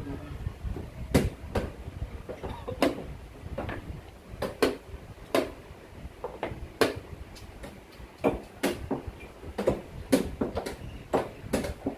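Wooden chess pieces set down hard on the board and chess clock buttons pressed in quick alternation during a fast blitz game: an irregular string of sharp clicks and knocks, often two close together.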